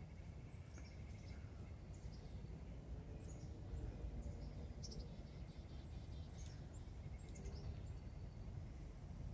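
Faint, scattered small-bird chirps over a steady low rumble.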